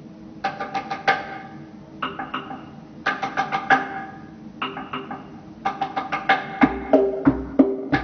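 Tombak, the Persian goblet drum, played solo with the hands: short phrases of quick, bright ringing strokes separated by brief pauses, with deeper bass strokes joining in near the end.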